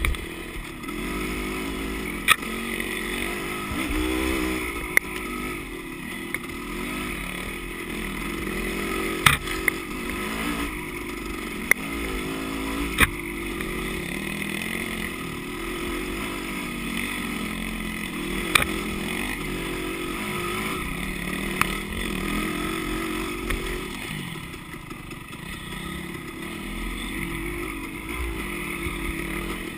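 Dirt bike engine running under load on a rough trail, its pitch rising and falling as the throttle opens and closes. Several sharp knocks stand out now and then.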